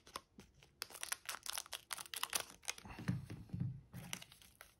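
Scissors snipping across the top of a foil Pokémon booster pack, the foil wrapper crinkling as it is handled, with a quick run of sharp crackles in the first half and a few softer thumps later.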